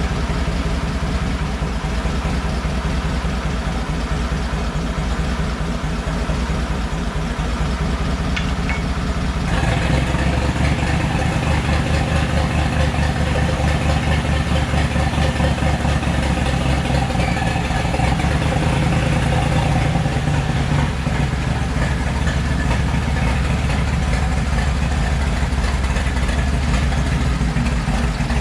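Freshly rebuilt Nissan TD42T 4.2-litre inline-six turbo-diesel engine running steadily. About ten seconds in the sound steps up and stays louder.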